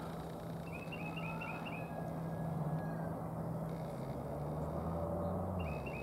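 Low steady hum of a vehicle engine, shifting in pitch near the end. Over it come two quick runs of about six short, high bird call notes, one about a second in and one at the very end.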